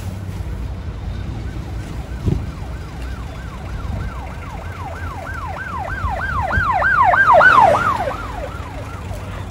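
Emergency vehicle siren with a fast yelp, each wail falling in pitch, about three to four a second; it grows louder, is loudest about three-quarters of the way in, then fades. A steady low street-traffic rumble runs beneath, with one short thump a couple of seconds in.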